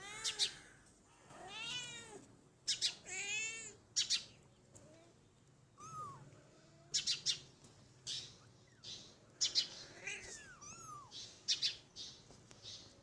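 Kitten meowing again and again: short, high-pitched mews that rise and fall in pitch, with short sharp noises between them.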